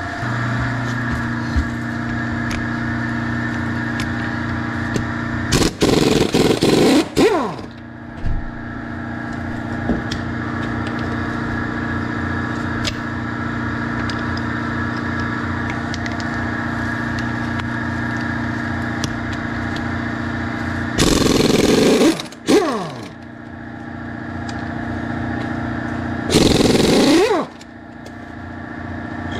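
Impact wrench on wheel lug nuts, fired in three short bursts, each winding down with a falling whine, over a steady motor hum.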